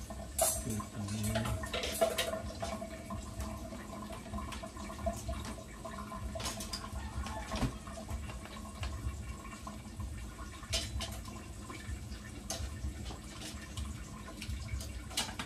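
Water running and dripping at a kitchen sink, with scattered light clinks and knocks of a bowl and utensils as vegetables are handled.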